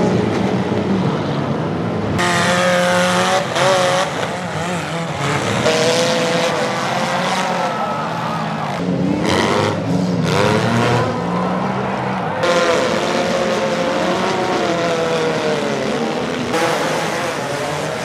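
Demolition derby cars' engines revving hard, their pitch rising and falling as they ram each other on dirt, with a few loud crash impacts of car bodies colliding. The sound jumps abruptly several times between heats.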